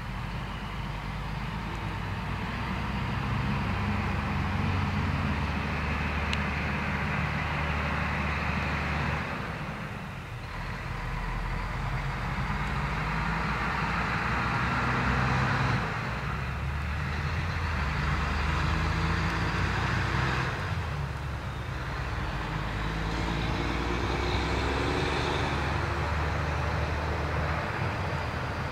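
Road traffic: vehicles going past in several waves of rushing noise, over a low, steady engine hum.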